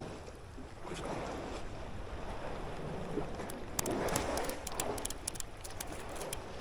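Water sloshing in slow swells, with wind rumbling on the microphone; a run of light sharp clicks sounds about midway.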